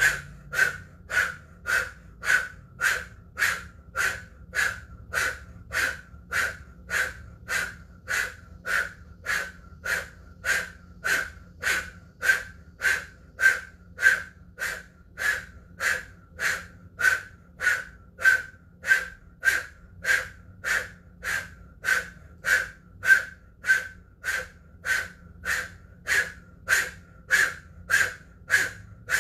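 Breath of fire through an O-shaped mouth: a fast, even train of forceful, short breaths, a little under two a second, each with a hollow blowing tone from the rounded lips.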